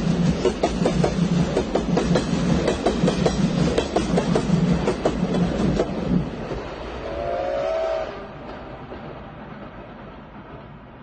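A passing steam train's wheels clattering over the rail joints in a steady rhythm over a low rumble, dropping away about six seconds in. A short steam-whistle toot of a few notes sounds together about seven seconds in, then the train's rumble fades into the distance.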